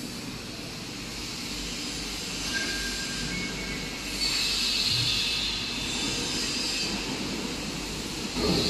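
Steady rushing, hissing background noise of a large industrial hall. It grows louder about four seconds in and again near the end, with two brief faint whistle-like tones a little before that.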